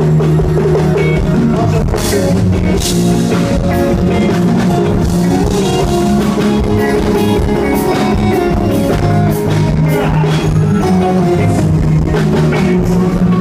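Live sertanejo band playing loudly over the PA, with drum kit and guitar and no lead vocal.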